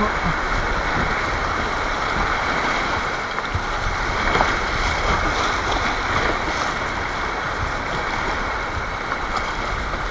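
River water rushing and churning steadily around a kayak as it runs a small rapid, heard close to the water surface.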